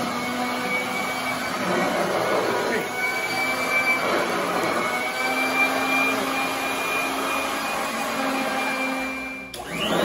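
Royal commercial upright vacuum running on carpet: a steady motor drone with a high whine. It dips briefly about half a second before the end.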